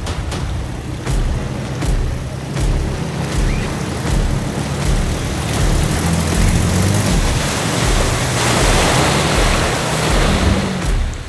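Off-road vehicle driving a trail: the engine runs and revs up and down over scattered knocks and jolts. A broad rushing noise swells through the second half before cutting off abruptly.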